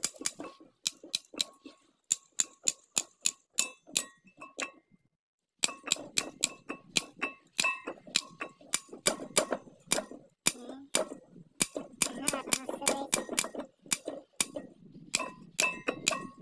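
Ratchet wrench clicking in quick runs of sharp metallic ticks, several a second, as its pawl is worked back and forth while undoing the valve-cover bolts. The clicking stops briefly about five seconds in.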